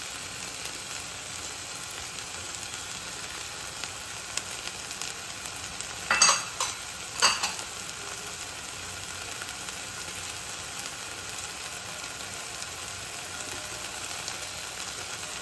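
Chopped onion and tomato masala frying in a stainless steel pan with a steady sizzle. Two brief louder sounds stand out midway, about a second apart.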